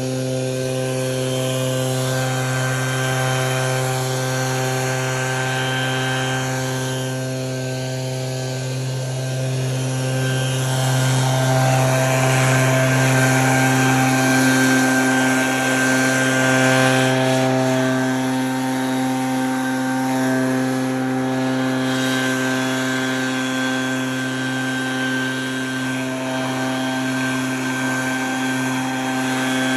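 A small engine running steadily at one unchanging pitch, somewhat louder for a few seconds midway.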